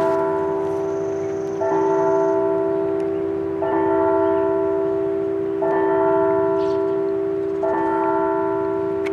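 A church bell tolling, struck about every two seconds, each stroke ringing on until the next.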